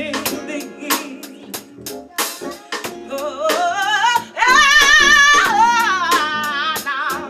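Live band music: a singer holds a long wavering note that climbs and sustains through the middle, over guitar and steady percussion ticks.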